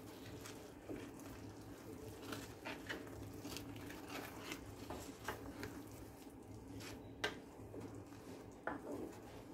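Wooden spoon stirring fava beans in salsa verde in a glazed clay pot: faint wet squelching with soft, irregular taps of the spoon against the pot, over a low steady hum.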